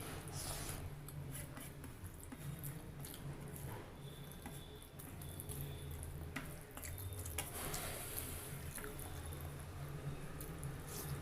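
Wet close-up eating sounds: chewing and small mouth clicks and smacks, with a couple of short noisier moments.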